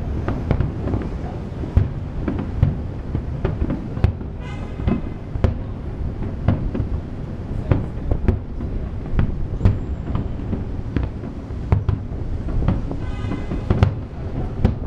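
Aerial fireworks bursting in rapid succession: a continuous low rumble of booms with many sharp reports throughout.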